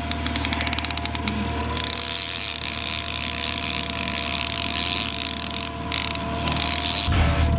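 Trolling reel being cranked to bring in a hooked king salmon: a rapid ratcheting click at first, then a steady high whir from the reel as the line comes in, broken off briefly about six seconds in.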